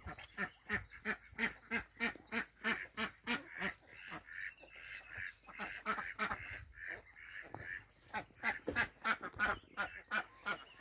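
Ducks quacking in quick runs of short calls, about three a second, softening into busier chatter for a few seconds in the middle before the sharp quacks return.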